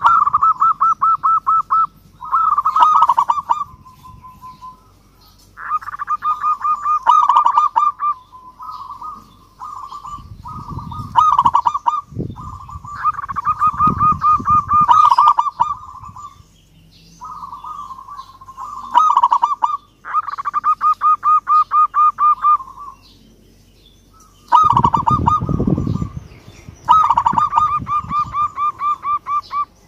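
Zebra dove (perkutut) cooing in repeated bouts: each bout a rapid run of short, evenly spaced coos at one pitch, lasting one to four seconds, with short pauses between.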